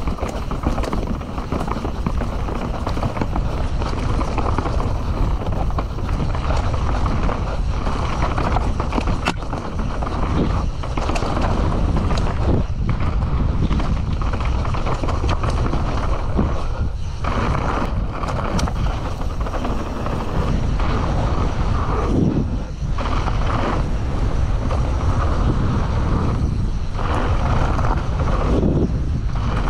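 Mountain bike riding downhill on a dirt and gravel trail: steady wind rush on the GoPro Hero 11's microphone mixed with knobby tyres rolling over the ground, with frequent clicks and rattles from the bike over rough ground.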